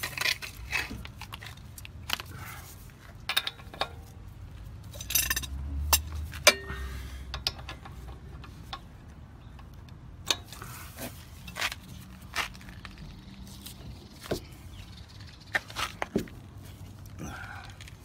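Scattered metallic clicks and clinks of a socket and breaker bar being fitted onto and worked against a car wheel's lug nuts, a few of them ringing briefly.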